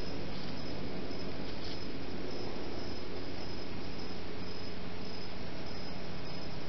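Night insects chirping steadily over a constant hiss from the trail camera's microphone, with repeated short high pulses and no distinct louder event.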